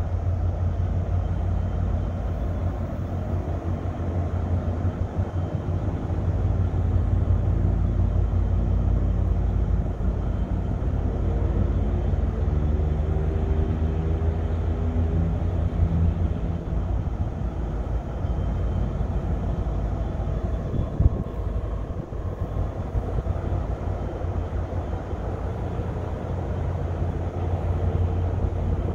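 A vehicle engine running under a heavy low rumble, its pitch climbing gradually for several seconds before fading back into the rumble. There is one sharp knock about two-thirds of the way through.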